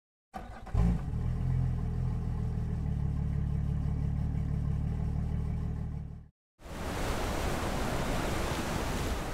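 An engine running steadily. It starts with a thump just under a second in and cuts off sharply about six seconds in. After a moment of silence, a steady rushing noise takes over.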